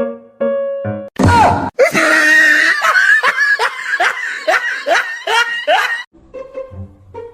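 Short keyboard-like music notes, then a sudden loud shriek about a second in, followed by about four seconds of loud, rapidly repeated shrieking cries.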